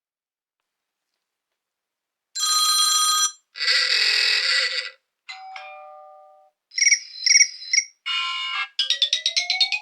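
A run of short electronic ringtone and alert sounds played one after another, starting about two seconds in: a held tone, a buzzy tone, a fading chime, a few quick beeps, then a rapid trill over a rising glide.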